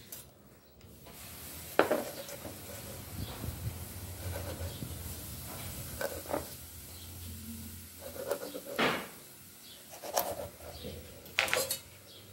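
A few sharp, widely spaced knocks and clatters of a large knife and a metal pipe on a wooden cutting board as a partly frozen tucunaré is cut up, over a steady background hiss.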